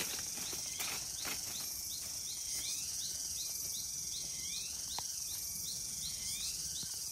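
Insects buzzing steadily in tropical forest undergrowth, with a short chirp repeating about twice a second. A few footsteps on the leaf-littered path in the first second or so.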